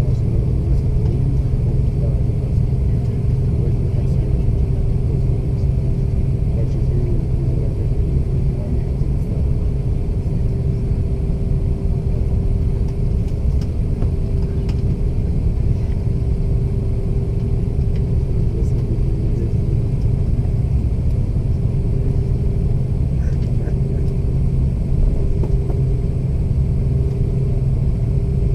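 Steady low rumble of an Airbus A330's jet engines and airflow heard inside the passenger cabin, with a steady hum above it.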